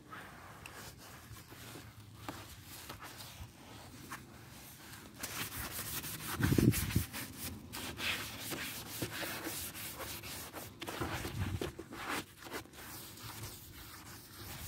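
Wet sponge scrubbing soapy foam over a scooter's plastic bodywork and wheel, an uneven rubbing and squelching that grows busier about halfway through, with one louder knock about six and a half seconds in.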